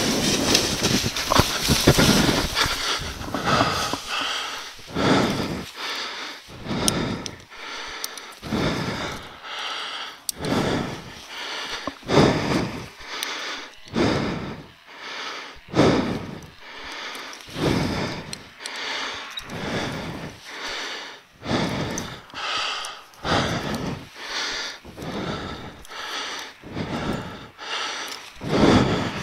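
A paramotor's engine and wind noise fill the first couple of seconds. Then comes a pilot's heavy panting close to the helmet microphone, fast and even at about one breath a second, the breathing of someone out of breath after a rough landing.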